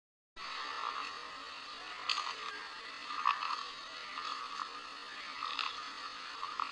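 Irregular sharp clicks and crackles, about one a second, over a steady hiss that starts abruptly just after the beginning.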